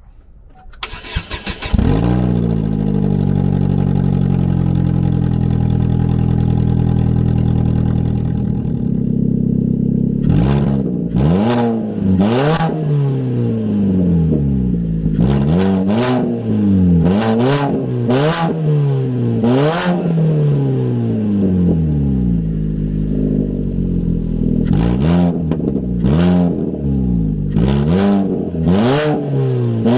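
Chevy Cruze 1.8-litre four-cylinder Ecotec engine cranking briefly and catching about two seconds in, running open with its exhaust manifold disconnected. It runs at a steady fast idle for several seconds, then is revved in a series of quick blips, with a short pause at idle, before the revving resumes.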